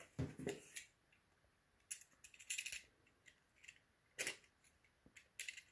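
Faint handling of packaging as a parcel is opened: scattered clicks and short scrapes and rustles, with a quick run of scratchy strokes about two and a half seconds in.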